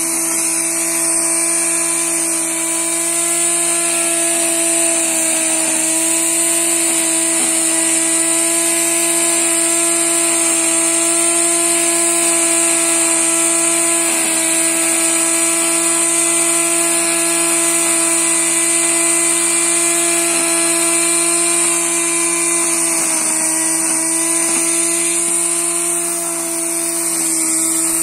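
Electric angle grinder on a homemade three-wheeled grass cutter, its motor running steadily with a high whine. The pitch dips briefly once, late on.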